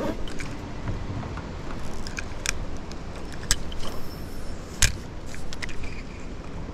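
Sharp clicks from a spinning rod and reel being handled, three of them a second or so apart, the last and loudest about five seconds in with a dull knock, over a steady low background noise.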